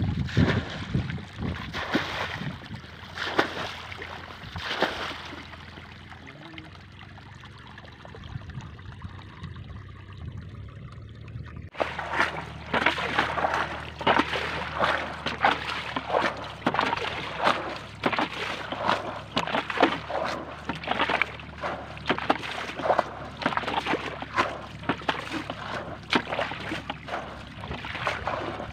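Shallow, muddy pond water being churned, with a quick run of small splashes and sloshes. It is sparser and quieter for a few seconds in the first half, then becomes a dense, busy run of splashing after an abrupt change about twelve seconds in.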